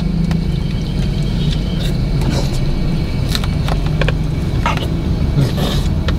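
Steady low hum of a car running, heard from inside its cabin, with scattered short clicks and scrapes of plastic spoons on a plastic tray of ice cream.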